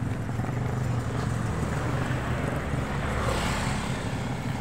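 Road traffic going by, with a vehicle passing close about three seconds in, its noise growing and then fading.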